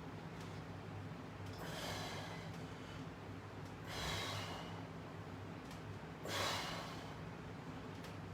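A man breathing hard through a set of resistance-band presses: three forceful exhalations about two seconds apart, one with each press. A steady low electrical hum sits underneath.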